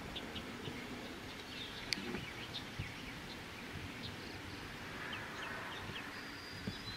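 Scattered short bird chirps over a faint low outdoor hum, with one sharp click about two seconds in.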